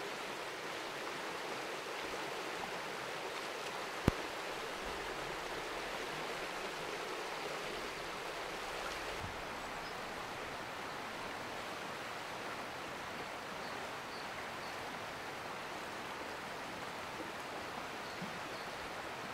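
River water rushing steadily over a shallow, stony stretch. A single sharp click about four seconds in.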